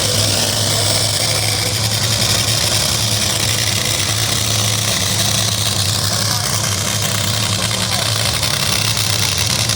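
An engine idling steadily: an even low hum with a hiss above it, no revving or change.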